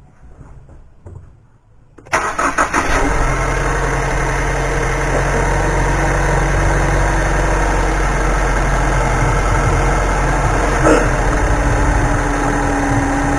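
The 2013 Ford Escape's 2.0 L four-cylinder engine is cranked about two seconds in, catches within a second and settles into a steady idle. It is the first start on new spark plugs, and it runs, showing the plug change was done right.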